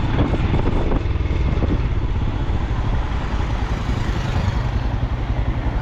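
Steady road traffic: motorcycles and cars going by, with a heavy low rumble under it.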